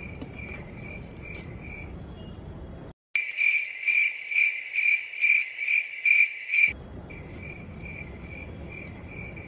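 Cricket chirping: an even, high, pulsed chirp repeated a few times a second, louder and cleaner from about three seconds in until nearly seven seconds. This is the comedy 'crickets' sound effect marking an awkward silence.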